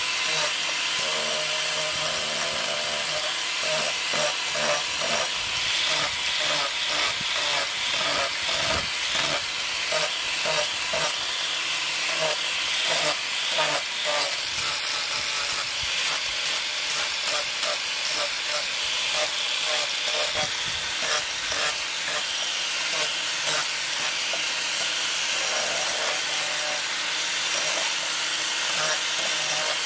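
Electric angle grinder with a sanding disc running against a wooden knife handle, shaping it: a steady motor whine under the hiss of abrasive on wood, which surges unevenly as the disc is pressed on and eased off.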